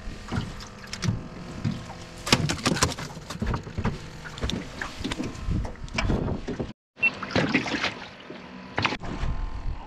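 Irregular knocks, thumps and clatter of handling a fish and gear against the hull and storage box of an aluminium jon boat, with a brief dropout about two-thirds of the way through.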